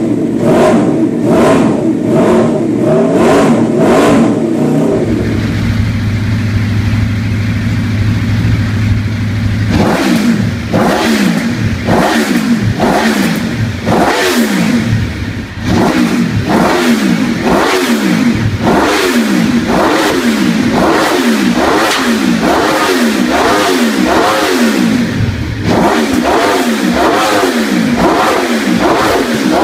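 Aprilia RSV4 V4 engine blipped through an SC Project exhaust, about two revs a second. After a cut at about five seconds a second RSV4 idles steadily, then from about ten seconds is revved over and over, about once a second, each rev rising and falling with sharp cracks as the exhaust backfires.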